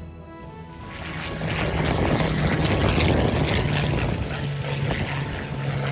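Supermarine Spitfire's V12 piston engine at full power as the fighter takes off and climbs away. A steady low drone builds over the first couple of seconds and stays loud.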